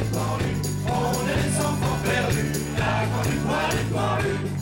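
Live folk band playing an instrumental passage with accordion: a steady bass line, jingling percussion on a beat of about two strokes a second, and a melody over it.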